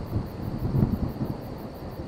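Thunder rumbling, with several crackling peaks in a low, rolling roll, over a steady hiss of rain.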